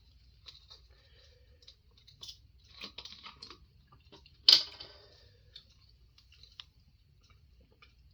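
Close-miked chewing and wet mouth sounds of someone eating seafood-boil food, small clicks and smacks scattered throughout, with one sharp, much louder crunch about four and a half seconds in.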